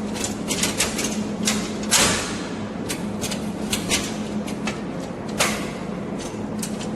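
Irregular clicks and knocks over a steady low hum, with a louder knock about two seconds in and another about five and a half seconds in.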